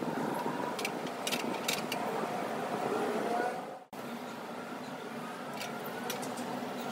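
Portable cassette gas stove burner running under a carbon steel pan: a steady rushing hiss, with a few faint ticks in the first two seconds. It breaks off for an instant about four seconds in and carries on.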